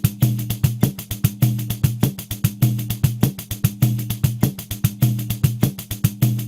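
Pandeiro playing a steady samba groove at 100 BPM: an even run of quick strokes with the jingles rattling, and a deep bass tone from the head sounding on the main beats.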